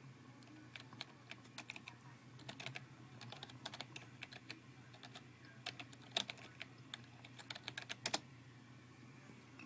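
Typing on a computer keyboard: irregular runs of light key clicks, a few sharper than the rest, over a steady low hum.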